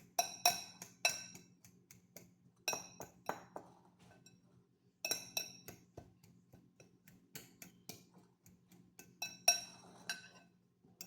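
A utensil mashing food in a bowl, striking and clinking against it in irregular runs of sharp knocks with a short ring, with a brief pause near the middle.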